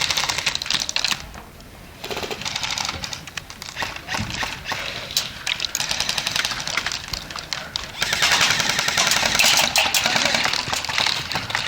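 Airsoft guns firing rapid full-auto bursts, heard as fast trains of sharp clicks. There is a short lull about a second in, and the heaviest firing comes near the end.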